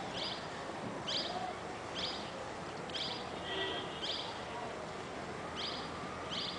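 A bird chirping repeatedly, short high calls about once a second, over steady outdoor background hiss.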